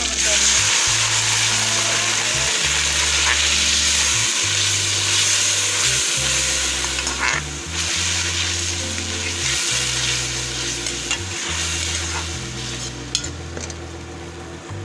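Onions, tomatoes and green chillies sizzling in hot oil in a metal pan, stirred with a metal ladle that scrapes the pan a few times. The sizzle is loudest at first and dies down over the last few seconds as the tomatoes give up their juice.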